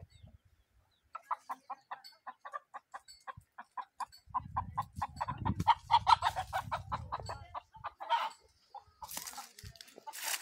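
A hen clucking in a fast run of short clucks, about four or five a second, loudest about six seconds in and stopping about eight seconds in. Brief rustling follows near the end.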